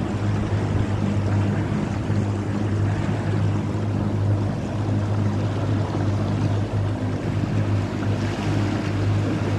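Motorboat under way, its engine running with a steady low hum over the rush of wind and choppy water.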